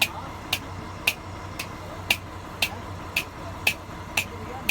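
Sharp ticks repeating evenly about twice a second over a steady low hum.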